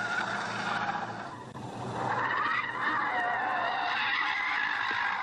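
A small car's tyres squealing as it slides hard through a corner on a race track, with the engine running underneath. The squeal wavers in pitch, eases about a second and a half in, then comes back stronger.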